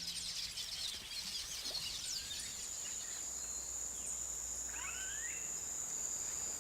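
Wetland ambience: small birds chattering in a quick run of high notes at first, with a few scattered calls, then an insect's steady high-pitched trill takes over from about two and a half seconds in.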